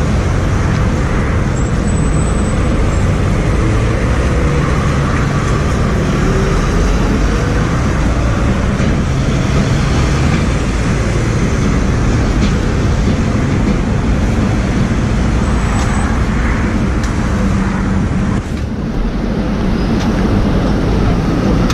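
Steady road traffic noise: vehicle engines running close by, with a heavy low rumble. The level dips briefly about eighteen and a half seconds in, then carries on.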